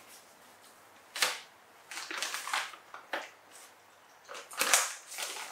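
A sharp click about a second in and another around three seconds, between bursts of plastic crinkling and rustling: a wet-wipes packet being handled, its flip-top lid snapped open and a wipe pulled out.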